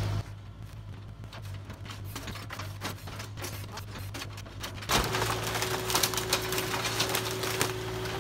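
Kubota mini excavator's diesel engine running with a low hum while its bucket works demolition debris: a rapid patter of cracks and clatters of splintering, falling wood. About five seconds in the sound turns louder, with a steady higher tone joining the engine.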